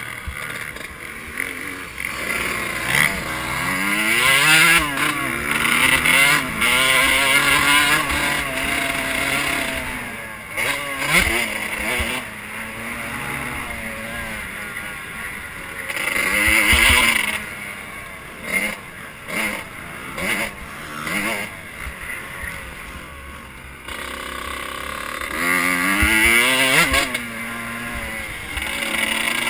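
Motocross dirt bike engine heard up close from the bike itself, revs repeatedly rising and falling as it is ridden round the track.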